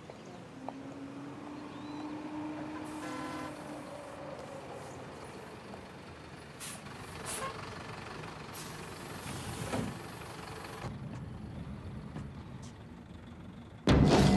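Dodge school bus running as it approaches, with a few short hissing bursts partway through. Loud music cuts in suddenly at the very end.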